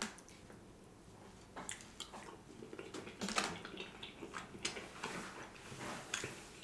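Close-miked chewing of soft food: wet mouth smacks and clicks at irregular intervals.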